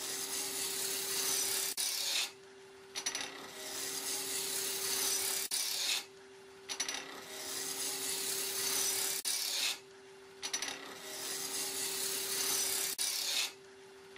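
Wood lathe running with a steady hum while a turning tool cuts the spinning wood in repeated hissing passes of two to three seconds, each followed by a short pause.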